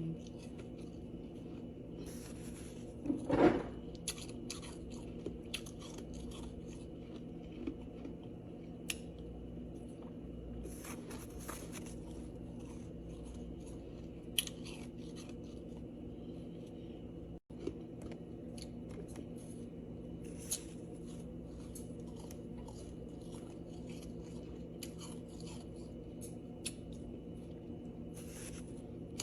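Ice being bitten and chewed close up: scattered sharp crunches and crackles over a steady low hum, the loudest crunch about three seconds in.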